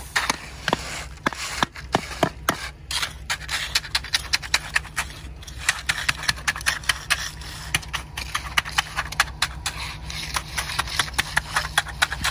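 Wet concrete with coarse gravel being pushed and spread with a concrete rake and smoothed with a hand float: a stream of irregular sharp scrapes and gritty clicks, over a low steady hum.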